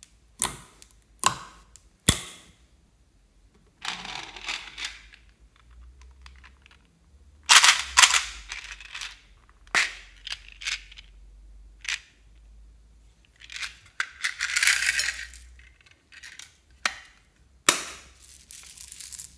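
A pink plastic case of small plastic pearl beads being handled: sharp clicks of the case and lid, and several short bursts of beads rattling and pouring out into a hand.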